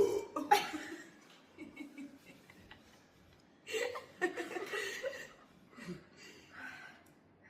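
People laughing and chuckling in short bursts, with the longest stretch of laughter about four seconds in.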